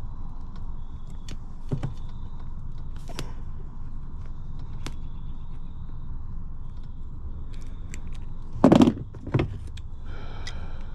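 Small clicks and rattles of hand tools and wiring parts being handled, with two louder knocks about nine seconds in, over a steady low rumble.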